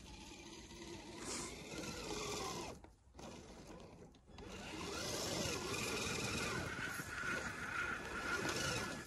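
Whine of a radio-controlled scale crawler's electric motor and gears as it drives through deep snow, the pitch rising and falling with the throttle. It drops out briefly twice a few seconds in, then runs louder and steadier.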